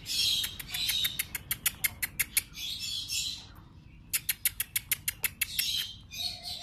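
Captive birds calling: two quick runs of sharp, high chirps, about six a second, broken by harsh, raspy calls.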